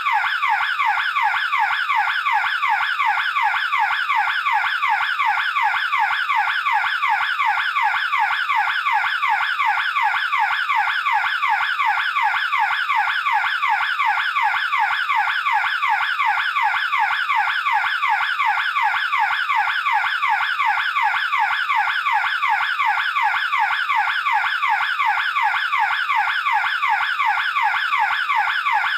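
Burglar alarm siren sounding continuously: a loud, fast-repeating sweeping tone, several sweeps a second at an unchanging level.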